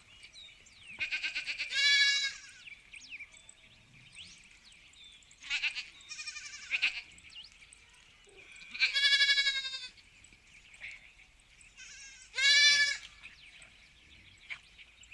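Sheep bleating: four separate bleats a few seconds apart, the first starting with a quick wavering pulse before the full call.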